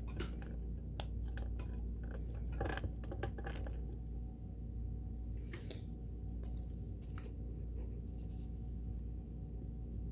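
Scattered light clicks and taps of handling as an oiler is worked around the open top of a Kenmore sewing machine, over a steady low hum. The taps come in two clusters, in the first few seconds and again past the middle.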